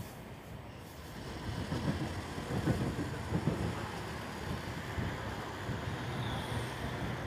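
Passenger train running at speed, heard from an open coach door: a steady rumble of wheels on the track with wind on the microphone. The rumble grows louder from about a second in, with several heavier low thumps between two and three and a half seconds.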